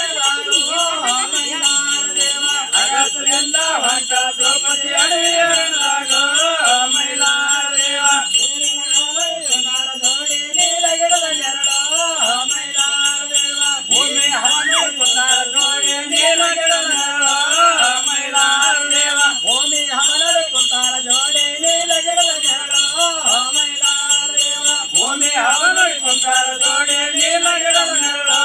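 A group of men singing together, with small metal hand cymbals jingling steadily throughout.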